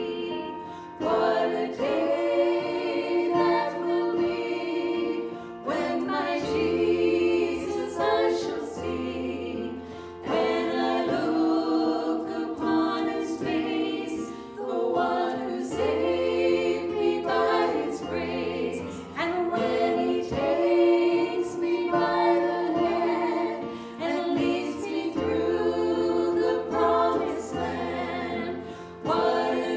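Group of voices singing a worship song in choir style, in long held phrases, with steady low notes underneath.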